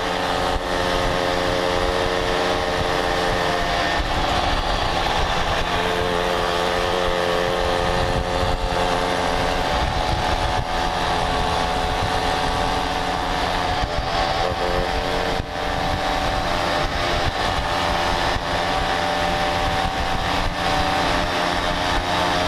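Mobylette moped's small two-stroke engine running at a steady cruising speed, heard from on board with wind rushing over the microphone. The engine note shifts slightly in pitch a couple of times.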